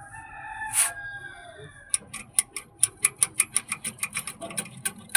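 Mercedes S550 air-suspension height-control compressor making a fast, even ticking, about five to six clicks a second, starting about two seconds in. A long pitched call, like a crow, comes before it in the first second and a half.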